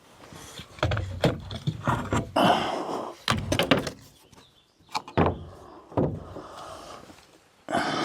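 Wooden outhouse parts being handled and fitted: a run of knocks, thuds and short scrapes of wood against wood, busiest in the first half, with a few more knocks later.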